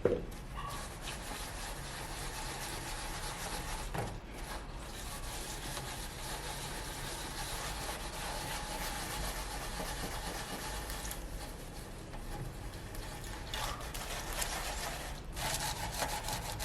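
Copper surface of a fireplace being scrubbed with salt and lemon, a continuous gritty rubbing broken by a few short pauses, working at deposits that are stuck on hard.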